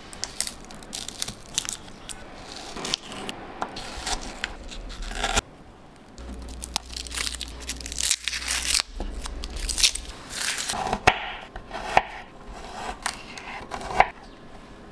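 Kitchen food-prep sounds: sharp knife taps on a board with crinkling and tearing, as onion and garlic are peeled and chopped.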